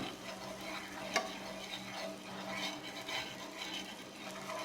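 Butter sizzling and crackling faintly on a hot dosa griddle, with one sharper click about a second in. A steady low hum runs underneath.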